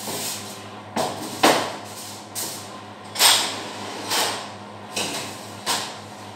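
Groceries being handled on a table: a string of short knocks and brief rustling hisses, spaced roughly a second apart, over a steady low hum.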